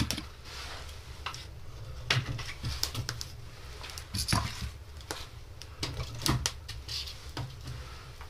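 Split firewood being fed into the firebox of a burning wood-fired sauna stove: irregular knocks and clicks of logs against each other and the stove, over a low steady rumble.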